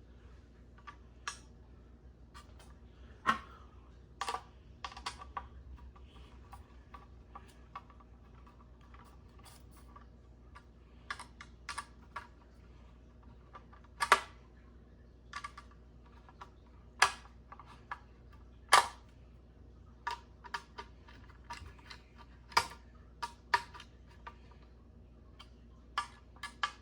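Irregular sharp metallic clicks and clinks, some briefly ringing, of screws and a screwdriver handled against metal while ceiling fan blades are fastened to their blade irons.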